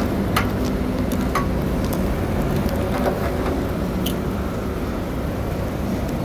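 Steady motor-vehicle engine and road noise, with a few short clicks.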